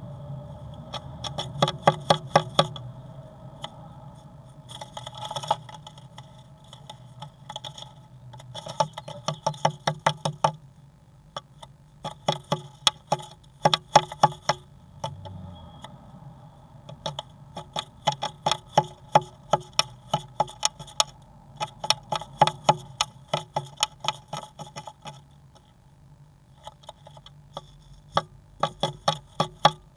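A great tit moving about inside a wooden nest box: runs of sharp taps and scratches against the wood, several a second, each run lasting a second or two and recurring throughout.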